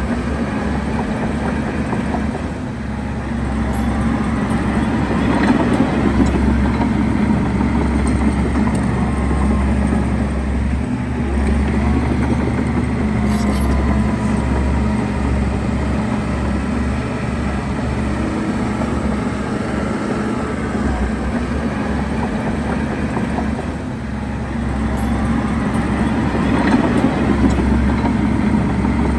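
Heavy diesel engine of construction machinery running under load, its loudness swelling about four seconds in, easing slightly around twenty-four seconds and building again.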